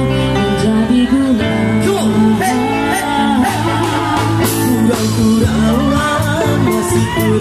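Live street band playing a Malay song, with a singer over guitar and a drum kit.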